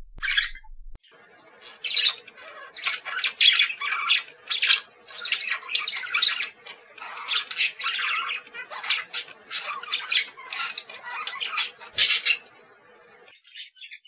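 Budgerigar calling: a fast, unbroken run of short chirps and squawks, over a faint steady hum that comes in about a second in and stops shortly before the end.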